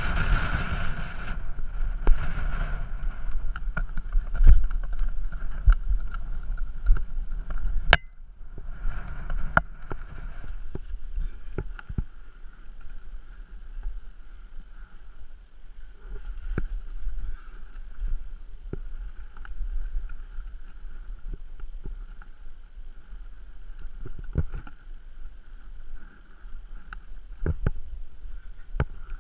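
Wind rumbling on a worn action camera's microphone, heavier in the first several seconds, with scattered knocks and scrapes of a climber's hands, shoes and gear against rock. A sharp click comes about eight seconds in, after which the rumble eases.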